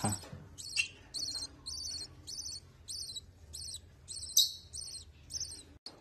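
Featherless hand-reared lovebird chick calling: a string of short, high chirps, about two to three a second.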